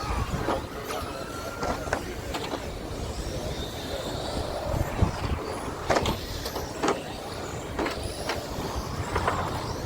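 2WD short course RC trucks racing on asphalt: motors whining and tyres scrubbing, with scattered sharp clicks and clacks.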